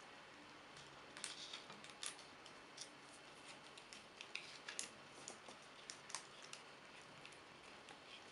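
Scissors cutting through a thin plastic soda bottle around the jelly inside it: faint, irregular sharp snips and clicks.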